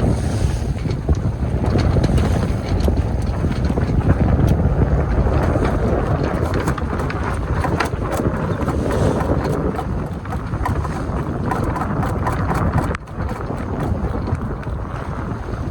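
Strong wind buffeting the microphone aboard a sailing yacht under sail, over the rush of water along the hull, with scattered sharp ticks in the middle stretch.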